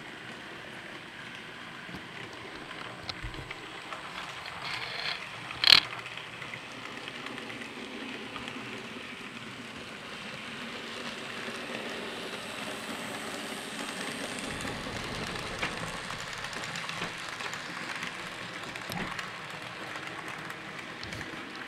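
Graham Farish N gauge Class 66 model locomotive running with a freight train on model track: a steady whir and rattle from the motor and wheels, a little louder around the middle as the train comes past. One sharp click about six seconds in.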